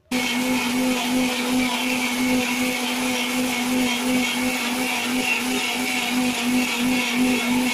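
Electric mixer grinder switched on and running at a steady speed, its motor humming while the blades puree chopped apple, beetroot and carrot with water in a stainless steel jar.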